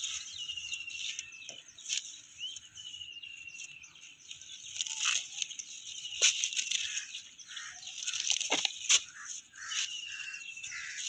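Spinach leaves rustling as they are handled and stems being snipped with scissors, giving a few sharp clicks. Short whistled bird calls sound in the background.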